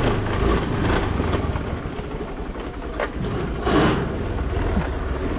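Small Honda scooter engine running at low speed as the scooter rolls off, with a brief louder noise a little before four seconds in.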